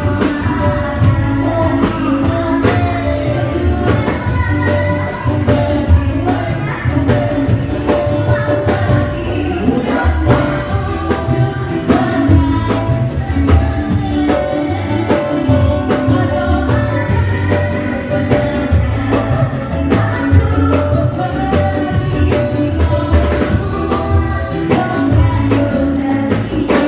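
A woman singing into a microphone over band music with drums and a steady beat.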